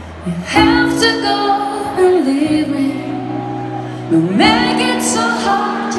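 Live acoustic pop music from the stage of a large arena: piano and acoustic guitar playing sustained chords, with a woman singing. New phrases come in about half a second in and again after about four seconds.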